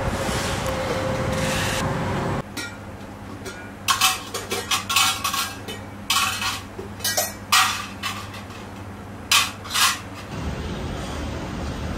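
Steady background noise cuts off about two seconds in. Then an irregular run of about a dozen sharp clinks and knocks of metal utensils against pans and food containers, before the steady noise returns near the end.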